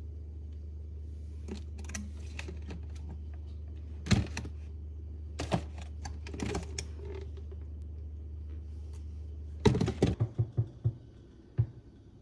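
Household objects being handled: scattered sharp clicks and knocks over a steady low hum. The hum stops about ten seconds in, and a quick run of knocks and clatters follows.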